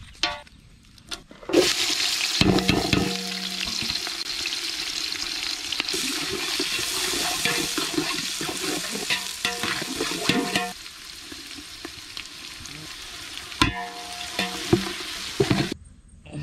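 Biryani ingredients sizzling in hot oil in a cooking pot, with the knocks and scrapes of a ladle stirring. The sizzle starts suddenly, eases about ten seconds in and stops shortly before the end.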